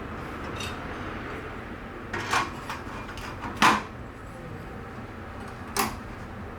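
A few sharp knocks and clinks of objects being handled: a pair about two seconds in, a louder one near the middle and another near the end, over a steady background hum.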